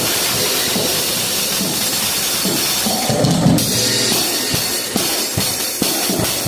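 Drum kit played over a snoring sound effect, with bass drum and snare hits coming clearer in the second half.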